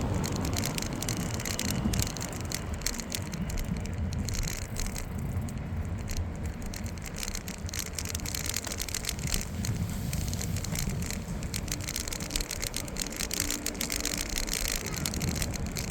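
Riding a bicycle: wind buffeting the microphone as a constant low rumble, with a steady run of small clicks and rattles from the bike going over uneven ground.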